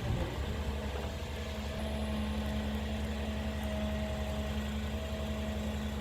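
Heavy logging machine's diesel engine running steadily: a low, even hum with a faint steady higher whine over it.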